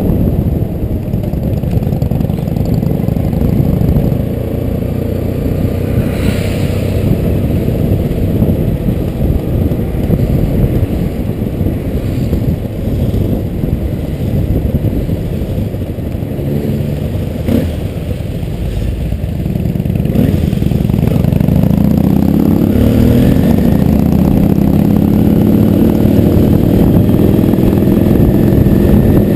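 Motorcycle engine running at road speed, heard from the rider's own bike. About two-thirds of the way through it accelerates, its pitch rising, then holds a steady higher note.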